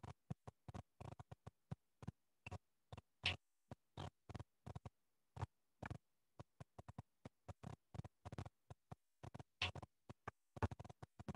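A string of faint, irregular clicks and scratchy ticks, a few a second, with near silence between them.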